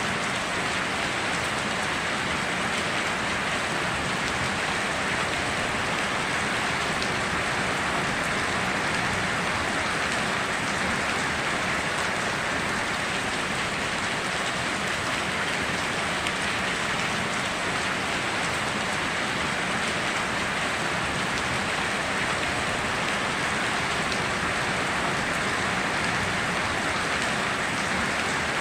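Steady heavy rain falling, an even hiss of many drops with no thunder.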